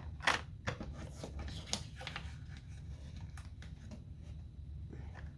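Small plastic bags and containers of diamond-painting drills being handled and sorted: a run of light clicks and rustles, the sharpest about a third of a second in.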